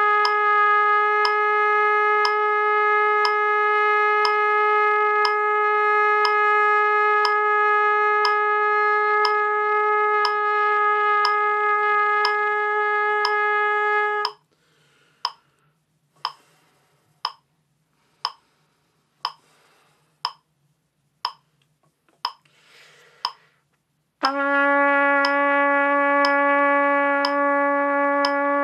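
Trumpet long-tone practice: a steady held note over a metronome clicking about once a second. The note stops about halfway through, leaving only the metronome for about ten seconds, and then a lower long tone begins.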